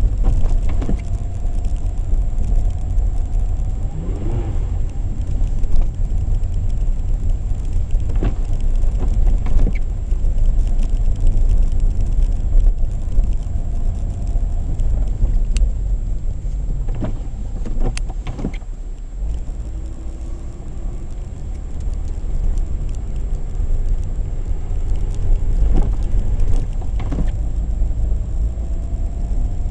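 Opel Kadett E Caravan driving slowly over snow, heard from inside the cabin: a steady low rumble of engine and tyres, with occasional knocks as the car jolts along. Its engine note rises slightly near the end.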